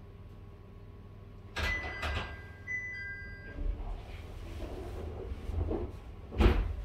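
Passenger door being worked inside a JR 701 series carriage standing at a stop, over a low steady hum. Two sharp clattering bursts come about one and a half seconds in, then a brief two-note electronic chime, a rumbling slide, and a heavy thud near the end as the door shuts.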